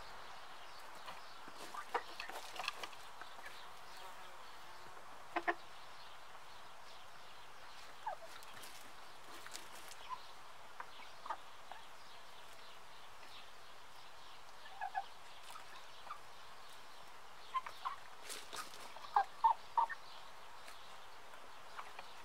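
Brown laying hens giving short, soft clucks every few seconds while pecking at grain, over a steady faint hiss. The loudest run of clucks comes near the end.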